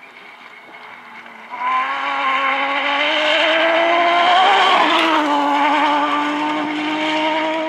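Off-road rally buggy's engine running hard as it passes close by on a gravel track. The engine comes in loud about a second and a half in, its pitch rising as it nears and dropping as it goes past about five seconds in, then holding steady as it pulls away.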